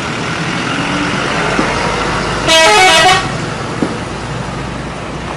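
A bus's telolet horn sounds one quick run of several short stepped notes about two and a half seconds in, over steady traffic noise.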